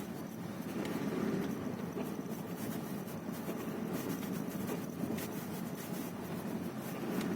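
Volkswagen Passat CC 2.0 TSI engine running as the accelerator pedal is pressed and released, with short creaks or cracks heard several times at irregular intervals over the steady hum. This creak or crackle on pressing and releasing the gas pedal is the fault the owner is trying to trace, cause unknown.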